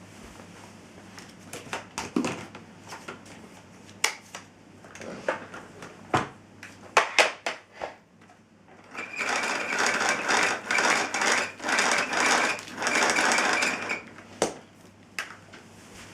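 Miele S256i canister vacuum cleaner being handled, with scattered clicks and knocks of plastic parts. About nine seconds in comes roughly five seconds of a loud, uneven rattling whir, which then stops.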